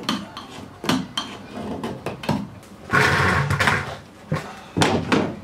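Metal hand tool scraping and clinking against a fiberglass boat hull, digging out old marine sealant: a string of sharp clicks and knocks, with a longer scrape about three seconds in.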